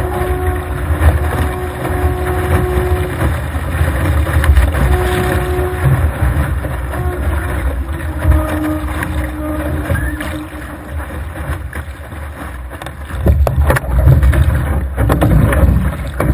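Strong wind buffeting the microphone and water rushing and spraying along the hull of a Laser sailing dinghy moving fast. The noise swells near the end as the boat heels over onto its side.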